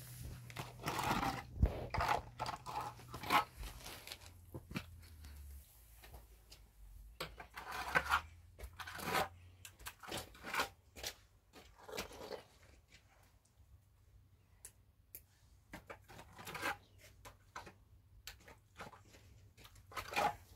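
Wet plaster being spread and scraped onto a concrete-block wall with a wooden float and by hand, in irregular scraping, smearing strokes.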